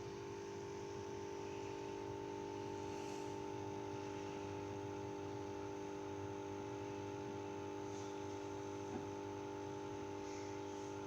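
Steady electric hum with several constant tones over a faint hiss, as from an aquarium's running filter pump.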